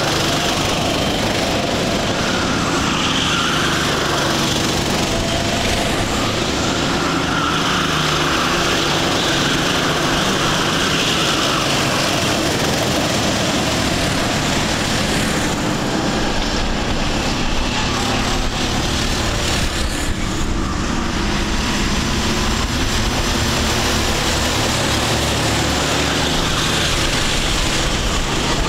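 A pack of Sodi rental racing karts running at speed, several small engines at once. Their engine notes rise and fall as the karts pass and accelerate out of the corners.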